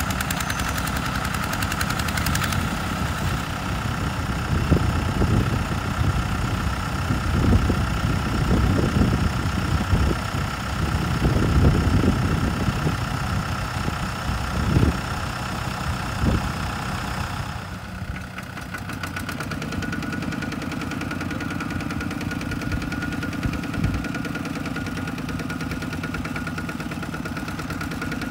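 Kubota M108S tractor's diesel engine running under load while towing a two-wheel tractor and loaded trailer out of deep mud. It rises and falls in irregular louder surges for the first half. A little past halfway it turns steadier and slightly quieter.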